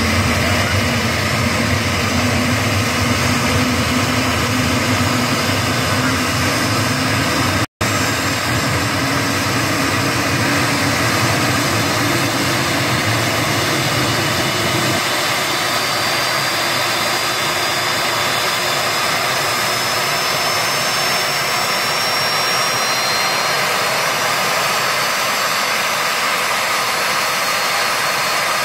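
An airliner's twin jet engines running during a ground engine run-up: a steady, loud jet noise with a high turbine whine that slowly rises in pitch through the middle of the stretch. The deep rumble eases after about 15 seconds, and the sound cuts out for an instant about 8 seconds in.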